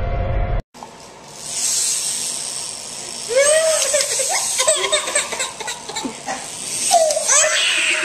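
Title music cuts off abruptly in the first second; then a baby's high-pitched vocalising, short rising-and-falling squeals somewhere between crying and laughing, starting about three seconds in and repeating in bursts.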